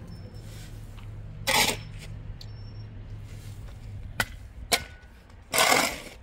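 A metal shovel scraping into a pile of dry sand and tossing it, with two longer scraping swishes, about a second and a half in and near the end, and two short knocks from the blade in between.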